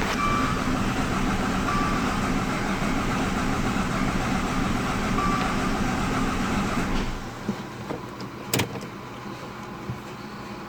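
Dodge Dart MultiAir engine running steadily, back to running after a no-start repair, then cutting off about seven seconds in. A sharp click follows.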